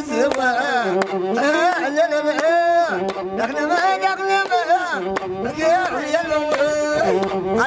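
Ethiopian azmari music: a wavering, ornamented melody sung with masinko, the one-string bowed fiddle, over a beat of sharp strikes.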